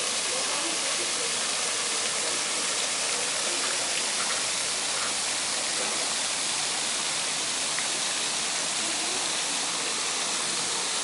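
Steady rushing hiss of water from a pond fountain's spraying jets, unchanging throughout.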